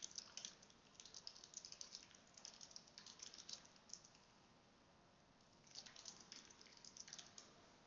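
Faint typing on a computer keyboard: two quick runs of key clicks with a pause of about a second and a half between them.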